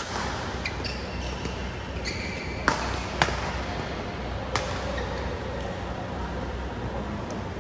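Badminton rackets striking a shuttlecock in a singles rally: four sharp hits, two of them half a second apart, with brief high squeaks of shoes on the court mat between the first hits.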